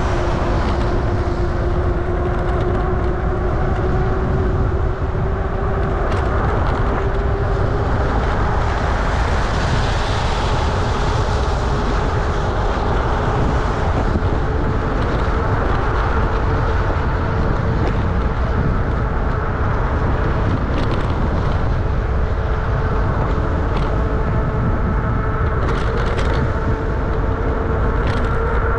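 Wind rushing over the microphone of a camera riding along on a bicycle in the rain, with a steady whine that rises slowly in pitch throughout. About ten seconds in a hiss swells and fades, and a few light ticks come near the end.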